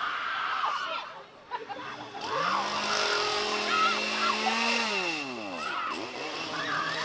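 Chainsaw engine revved up about two seconds in and held at high speed for a couple of seconds, then falling in pitch and settling back to a lower, steady run. Shrieks and voices come over it.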